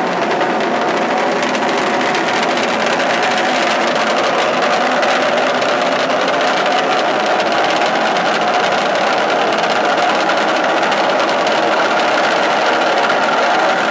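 Small engines of a homebuilt eight-engine helicopter running steadily with a fast, even rattle.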